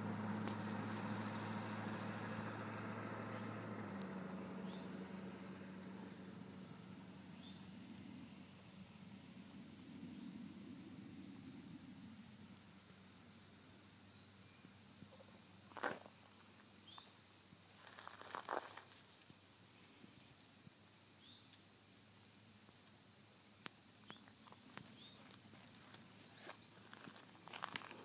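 Insects singing in a steady, high-pitched chorus, with a slightly lower band that pulses in phrases of about two seconds broken by short pauses. A low hum fades out about four seconds in, and a few faint clicks follow later.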